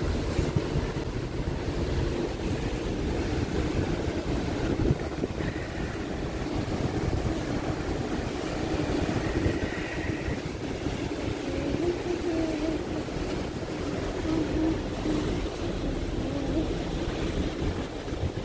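Wind buffeting the microphone on a ferry's open outer deck, over the steady rumble of the ship and the rush of water along its hull.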